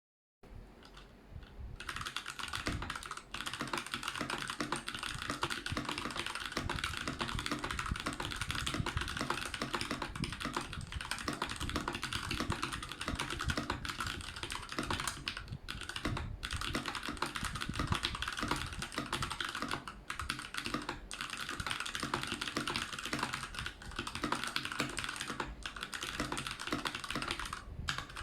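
Keychron K6 mechanical keyboard with stock Gateron Brown tactile switches, typed on quickly and continuously, a dense run of key clicks with a few short pauses.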